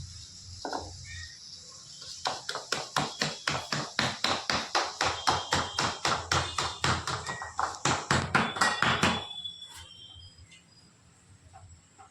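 Rapid, even knocking in a kitchen, about five strikes a second. It starts about two seconds in and stops suddenly after about seven seconds.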